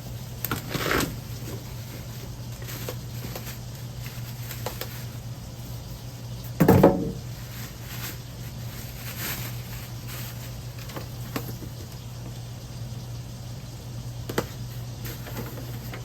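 Handling of a tankless water heater in its cardboard shipping box: scattered scraping and rustling of the packaging, with one loud bump about seven seconds in. A steady low hum runs underneath.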